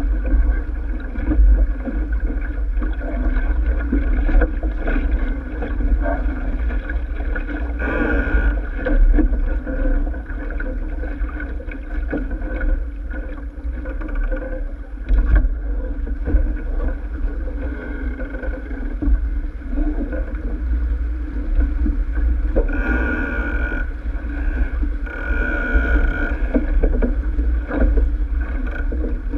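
Wind buffeting the microphone and water rushing along the hull of a sailing keelboat under way, a steady heavy rumble with a few brief louder surges.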